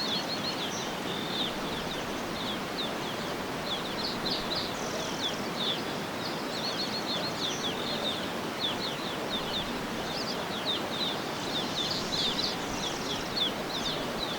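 Jungle ambience: a dense run of short, high bird chirps, many a second, over a steady rushing hiss.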